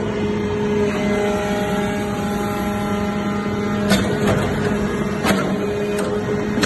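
Hydraulic metal chip baler running: a steady machine hum with a few sharp clicks about four, five and six seconds in.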